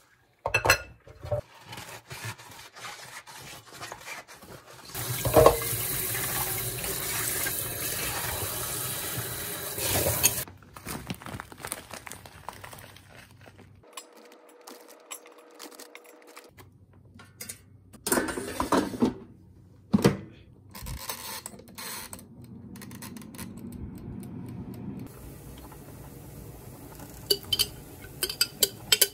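Dishes being washed in a stainless steel sink: bowls and glasses clinking, and a tap running for about five seconds. Later come scattered knocks and clatter of cooking utensils.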